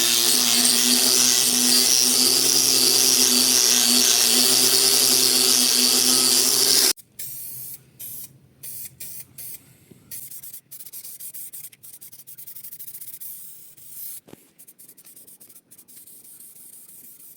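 Compressed air hissing out of a spray nozzle over the steady hum of a running motor, which cuts off abruptly about seven seconds in. Fainter, choppy spurts of hiss follow.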